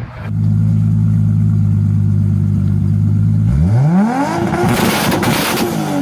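Toyota Supra's turbocharged 2JZ inline-six holding steady revs, then revved hard about three and a half seconds in. It climbs quickly to high revs with rising exhaust and turbo noise, holds there, and starts to drop off right at the end.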